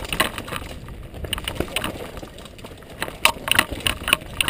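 Downhill mountain bike rattling and clattering as it rides over rocks and dirt, with sharp knocks in clusters, the loudest about three to four seconds in, over a steady wind rumble on the helmet camera's microphone.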